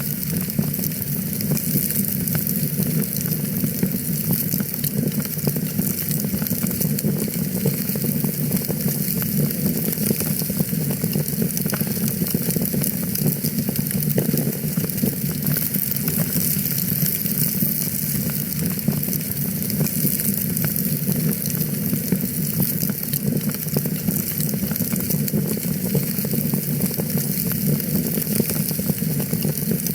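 Wood fire crackling steadily: a dense, continuous run of small snaps and pops over a low, even rush of burning.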